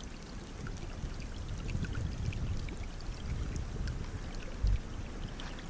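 Wind from a snowstorm rumbling on the microphone in uneven gusts, with scattered faint ticks and one short low thump near the end.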